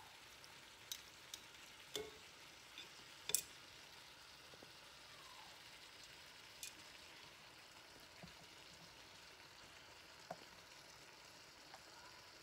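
Chicken fajita strips with peppers and onions sizzling faintly in a cast-iron skillet. A few sharp clicks of metal tongs against the pan come in the first few seconds, the loudest about three seconds in, and one or two more later.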